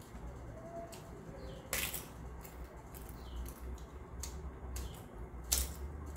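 Eating sounds: crunching bites into a flame-roasted papad and chewing, with two sharp crunches, about two seconds in and again near the end.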